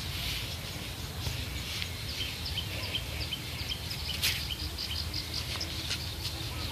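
Riverside ambience: high, short chirps repeated about four times a second from about two seconds in, over a steady low rumble, with one sharp click a little after four seconds.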